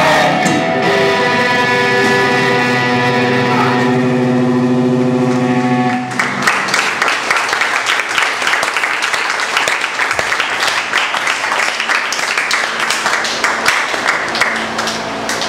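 Electric guitar chord left ringing out at the end of a live rock song. About six seconds in it cuts off and clapping and cheering follow.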